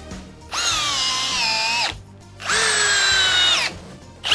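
Cordless 18V brushless drill-drivers driving 4-inch GRK structural screws into wood, one run after another. Two runs of about a second and a half each, the motor whine sagging a little in pitch under load and then cutting off, and a third run starting at the very end.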